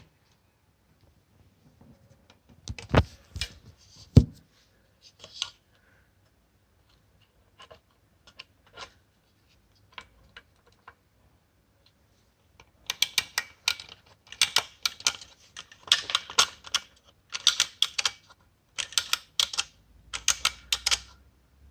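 Clockwork mechanism of a 1910s Günthermann tin mechanical parrot clicking and clattering in rhythmic bursts about once a second, after two sharp knocks and a few scattered clicks.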